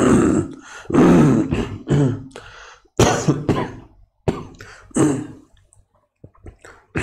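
A man clearing his throat and coughing repeatedly, a run of short harsh bursts that thins out and fades near the end.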